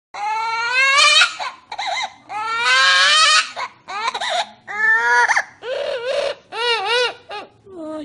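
Parrot imitating a crying baby: a run of seven or eight loud wailing sobs with short breaks between them. Several rise in pitch, and one near the end wavers up and down.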